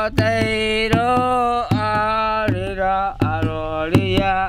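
A chant-like song in the Asháninka language: one voice holding long, wavering notes over a hand drum struck at an uneven pulse, with a low steady hum beneath.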